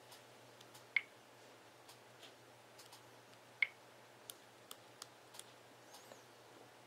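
Samsung Galaxy Note's S Pen stylus tip tapping and ticking on the phone's glass screen while writing: light ticks throughout, with two sharper clicks, about a second in and about halfway through.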